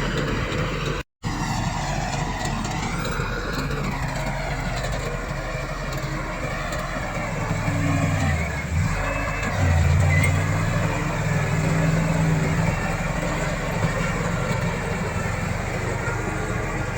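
Komatsu D68 bulldozer's diesel engine running steadily. Its pitch dips and then climbs back up about halfway through.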